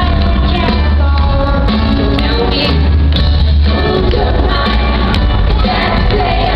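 Woman singing a pop song live with band accompaniment and a strong pulsing bass line, amplified through an arena sound system.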